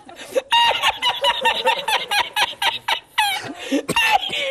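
A man laughing hard in long runs of rapid, high-pitched cackles.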